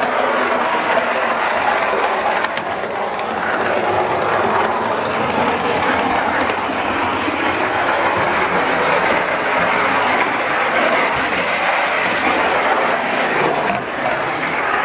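Gas-fired live-steam model tank locomotive running on its track: a steady hiss and rush of steam, with a rapid, even ticking from the running gear.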